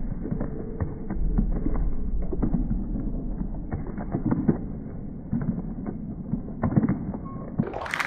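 Running footsteps thudding on a raised wooden court, with irregular knocks and a low rumble, sounding dull and muffled.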